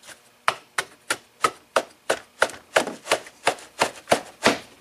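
Hand repeatedly striking a tight-fitting 1/2-inch plywood panel, about three sharp knocks a second, driving the bottom of a speaker cabinet's small mid-range box into place.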